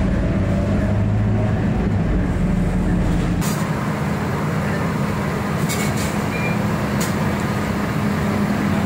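Bus engine and road noise heard from inside a moving bus. About three and a half seconds in, the sound cuts to a steady engine drone from buses in a covered bus interchange, with a few clicks and one short beep.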